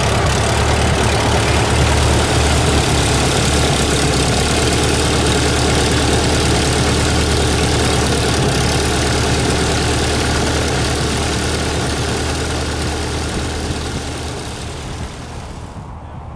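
Lycoming IO-320 four-cylinder engine of an RV-6 homebuilt airplane idling up close, propeller turning, a steady low drone. It fades over the last few seconds and gives way to faint background.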